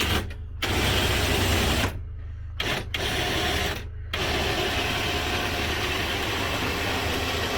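A small electric motor runs in three short stop-start bursts, then runs continuously from about four seconds in. A steady low engine hum runs underneath.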